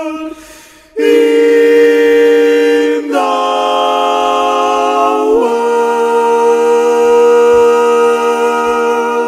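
Unaccompanied vocal quartet singing the closing chords of a gospel song. After a short breath, the voices come in on a long held chord about a second in, move to new chords about three seconds in and again about five and a half seconds in, and hold the last one.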